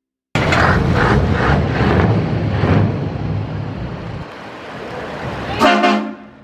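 Heavy vehicle engine noise cutting in loud and rough, with wind on the microphone, easing off after about four seconds. Near the end comes a short, loud horn blast.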